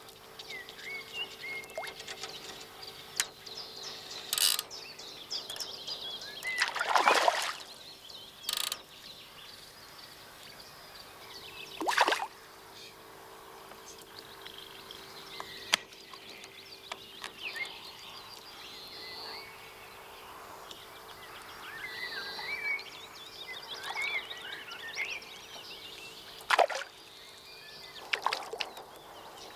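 Several short water splashes as a fish swirls at the surface of a pond, the biggest about seven seconds in, with birds chirping throughout.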